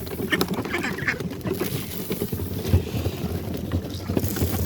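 Ducks quacking, clustered in the first second or so, over a steady low rumble.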